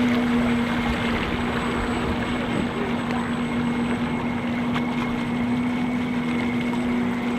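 Radio-controlled model boat motor running with a steady, even whine over a background hiss.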